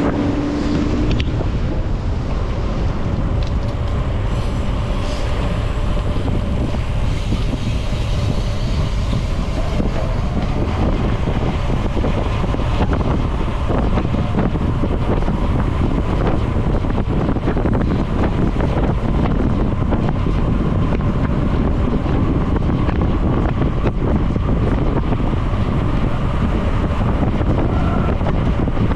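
Wind buffeting the microphone of a road cyclist riding at speed: a steady, loud rumble with no break.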